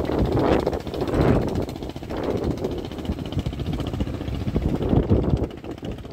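Wind gusting on the microphone over a boat engine running steadily, with water rushing past the hull.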